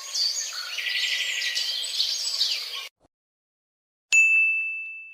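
Several birds chirping and trilling together, cut off abruptly about three seconds in. After a second of silence comes a single bright ding, a struck bell-like tone that rings and slowly fades.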